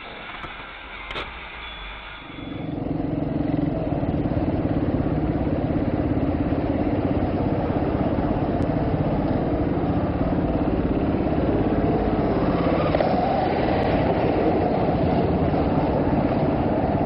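Quiet car interior for about two seconds, then a motorcycle engine running steadily at idle, heard close from the stationary bike.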